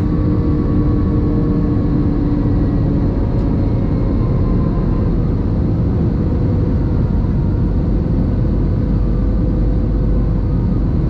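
Steady low rumble of a train running at speed, with a few faint steady hums over it.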